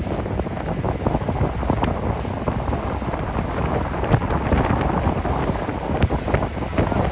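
Wind buffeting the microphone: a steady low rush with many small crackles.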